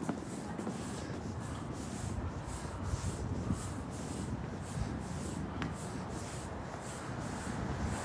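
Walking footsteps scuffing on pavement at a steady pace, about two steps a second, over a low rumble of street noise.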